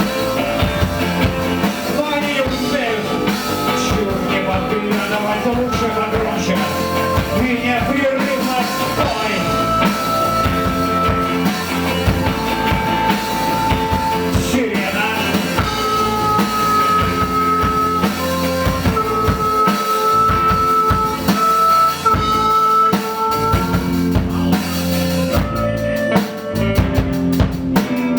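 Live rock band playing an instrumental passage: drum kit and guitars under a melody of long held notes.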